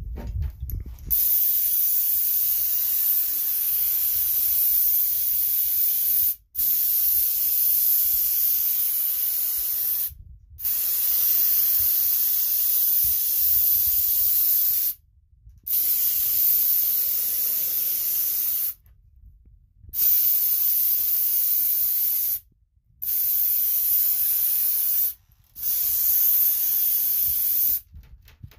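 Critter siphon spray gun spraying clear gloss Helmsman spar urethane with compressed air: a steady hiss in seven long bursts, each lasting about two to five seconds, with the trigger let go briefly between them.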